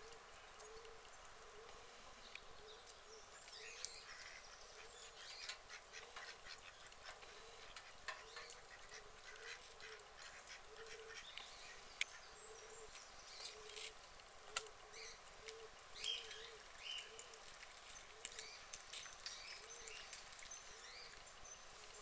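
White domestic ducks calling quietly: soft, low quacks repeated steadily about one to two a second, with scattered faint clicks.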